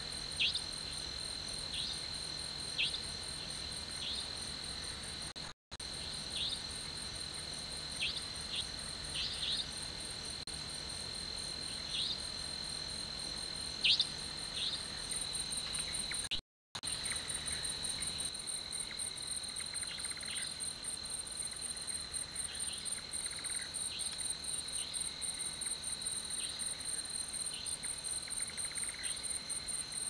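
Night-time cricket chorus: a steady high-pitched trill with a faster pulsing trill above it, and short, sharp downward-sweeping chirps scattered through. The sound cuts out abruptly for a moment twice.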